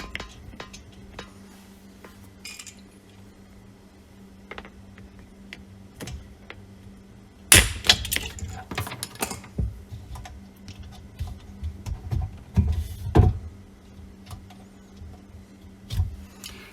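Handling work under a sink while fitting reverse osmosis tubing to the tank's ball valve: scattered clicks, clinks and knocks, with louder clatter about seven and a half seconds in and again around thirteen seconds, over a faint steady hum.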